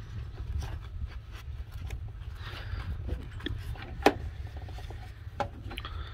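Hands working wires and plastic inside a motorbike's battery compartment: scattered clicks and rustling, with one sharp knock about four seconds in, over a steady low rumble.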